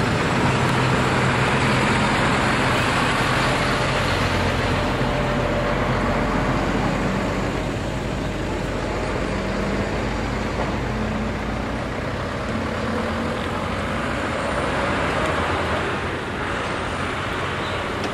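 A motor running steadily, a low hum under a constant wash of noise, its pitch stepping slightly now and then.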